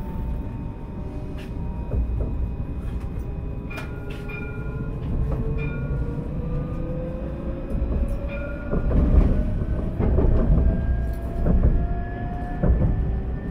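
Alstom Citadis tram on Paris line T3a accelerating: the whine of its electric traction motors rises steadily in pitch over a running rumble. Clicks and clacks come from the wheels on the track, growing louder in the second half.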